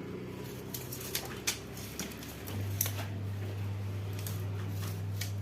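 A steady low electrical hum that fades down about half a second in and comes back at full strength about two and a half seconds in, with a few light clicks and taps.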